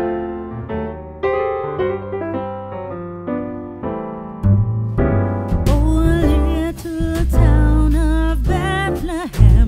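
Background music: electric piano chords, joined about halfway through by bass, drums and a singing voice.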